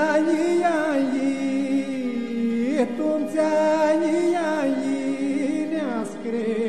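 Aromanian folk song: a sung melody full of ornamental turns over a steady held drone, with a short break between phrases about three seconds in and again near the end.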